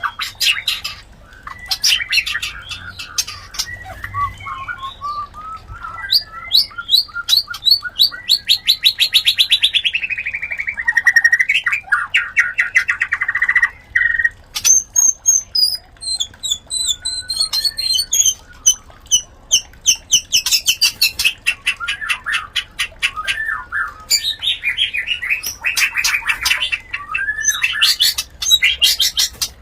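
White-rumped shamas (murai batu) calling during mating: rapid ticking rattles, a long fast trill that slides down in pitch midway, clear whistled notes, then more fast rattling near the end.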